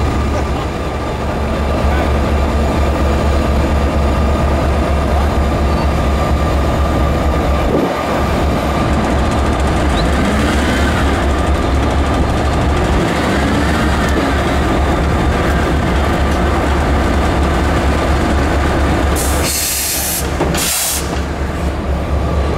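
Heavy diesel engine running steadily at a low rumble during a crane lift of a derailed locomotive. Two short, sharp hisses come near the end.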